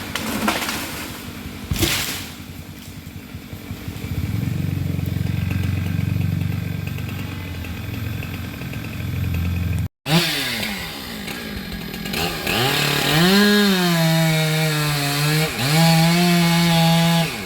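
Stihl MS 462 chainsaw: a couple of sharp knocks, then the saw running low and steady. Later its engine revs up and down and is held at high revs, dropping briefly twice.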